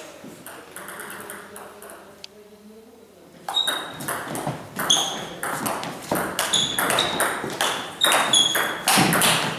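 Table tennis rally: the ball clicking off the bats and the table, many hits carrying a short high ping. After a quieter lead-in with a single faint tap, the hits start about three and a half seconds in and come at roughly two a second.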